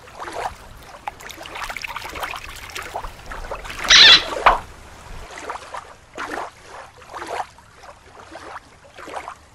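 Water sloshing and splashing as a small plastic toy sea turtle is dipped by hand into shallow water, with one louder splash about four seconds in.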